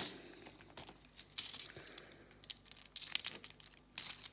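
50p coins clinking against each other as they are handled, in a few short jingles with light clicks between them, the louder ones about three and four seconds in.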